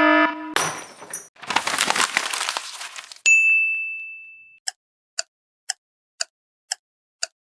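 A run of stock sound effects: the tail of a beeping alarm, then a noisy crash lasting a couple of seconds, a single ding that rings out and fades, and six short ticks about half a second apart.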